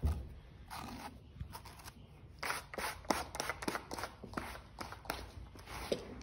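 A grooming brush scraping over a horse's thick, shedding coat in quick repeated strokes, about two or three a second, from about halfway through, pulling out loose hair. A thump sounds right at the start.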